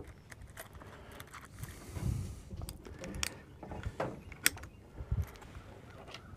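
Faint handling noise: scattered small clicks and a couple of soft knocks, about two seconds and five seconds in.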